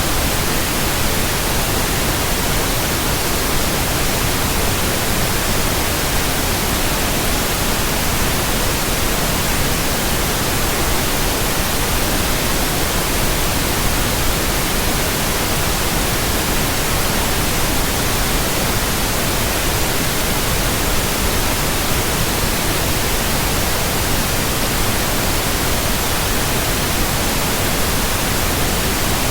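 Steady electronically generated white noise: an even, unchanging hiss across the whole range of pitch, loud and constant.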